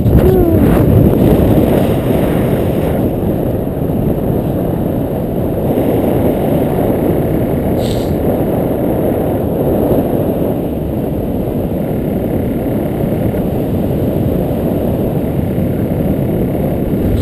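Wind rushing over the camera's microphone in paraglider flight: a steady low rumble of buffeting airflow.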